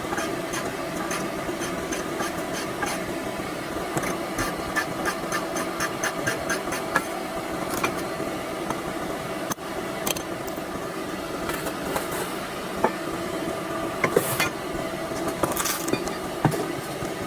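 Hand tools clicking and knocking on metal car suspension parts over a steady hum. The clicks come at an even pace for the first few seconds, then irregularly, with a few sharper knocks in the second half.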